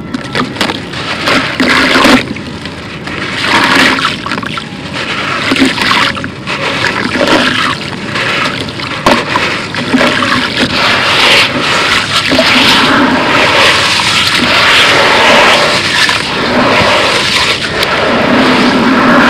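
Crumbled concrete and dry cement powder dropped into a tub of water, then hands squishing and mashing the wet gritty paste under the water, with watery sloshing and gritty crunching throughout.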